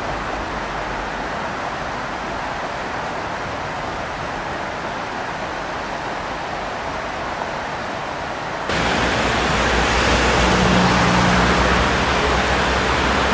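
Steady rush of river water spilling over a low weir. About nine seconds in it cuts abruptly to a louder, fuller steady noise with a low hum underneath.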